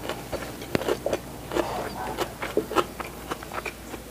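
A person chewing a mouthful of rice kneaded with chili paste, picked up close: an irregular run of short wet clicks and smacks from the mouth.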